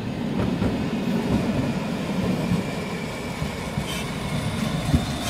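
Streetcar rolling in on the rails and slowing to a stop beside the platform, a low rumble throughout. A faint high whine comes in as it slows, and there is a single sharp knock near the end.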